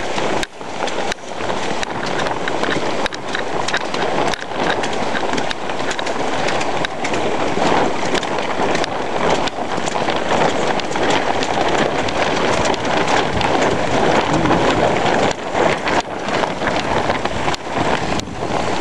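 Heavy rain and wind in a downpour: a steady, loud hiss of rain with gusts buffeting the microphone.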